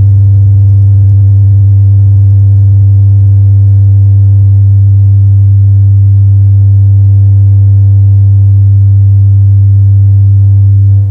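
Experimental drone from a cassette tape recording: one very loud, deep, unchanging tone with fainter higher overtones stacked above it, held steady throughout.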